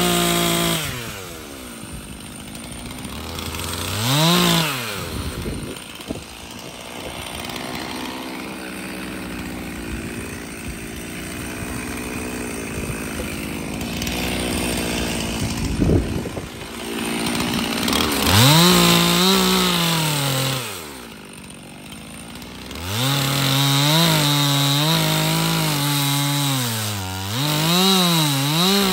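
Stihl MS 362 C two-stroke chainsaw, running on a dull, stretched chain. It revs up and falls back twice, runs slower through the middle, then goes to full throttle cutting old boards, its pitch sagging and recovering under load near the end.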